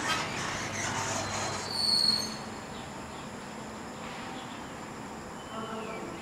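A Stockholm metro train squealing: one short, loud, high-pitched squeal about two seconds in, after a second or so of general rumble and noise. A faint, steady high-pitched whine follows.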